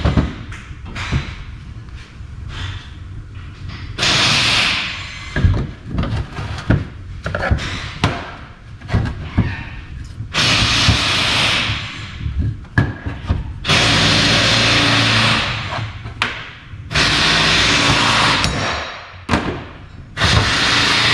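Wooden blocks and an aluminium transfer case housing knocked and set down on a workbench, with several loud bursts of whirring, hissing power-tool noise, each one to two and a half seconds long.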